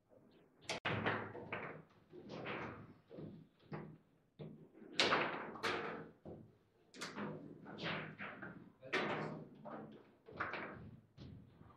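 Table football being played: an irregular series of sharp knocks and thuds as the ball is struck by the rod-mounted figures and bounces off the table's walls, with the rods banging as they are snapped.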